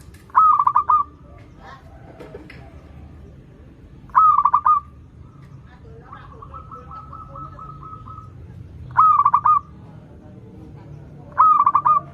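Zebra dove (perkutut) cooing: four loud phrases of quick, rolling coos, each about half a second long, spaced several seconds apart. A fainter, longer run of evenly spaced coos comes between the second and third phrases.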